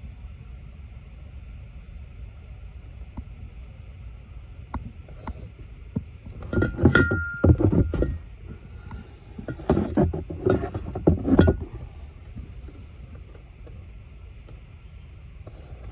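Knocking and clattering in two bursts, about six and ten seconds in, over a steady low rumble, with a brief squeak near the first burst.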